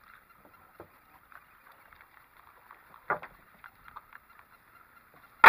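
Knocks on a small fishing boat: one short knock about three seconds in, then a much louder, sharp knock near the end, over a faint steady background.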